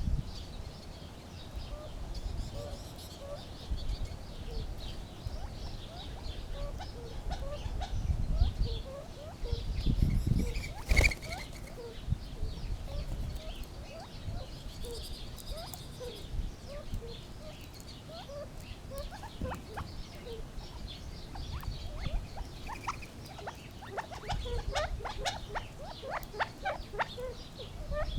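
Gambel's quail giving many short, soft clucking and grunting notes, thickening into a quick run of sharper notes near the end. A single sharp click about eleven seconds in, with a low rumble underneath.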